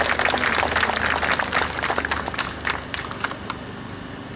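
Crowd applauding, many hands clapping at once, the clapping dying away about three and a half seconds in.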